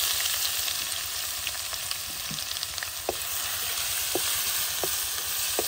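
Chopped garlic and whole spices sizzling in hot oil in a karahi: a steady frying hiss with a few short pops.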